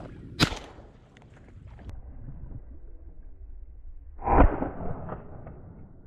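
Two shotgun shots: a sharp crack about half a second in, then a louder, duller boom about four seconds later. Low wind rumble on the microphone fills the gap between them.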